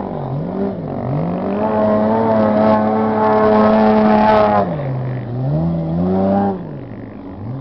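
Off-road race truck's engine revving hard as it drives past and accelerates away: a quick dip, then high revs held for about three seconds at the loudest, a drop, one shorter rev, and easing off near the end.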